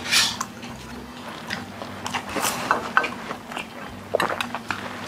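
Close-up eating sounds: chewing and biting on food, with wet mouth smacks and scattered light clicks.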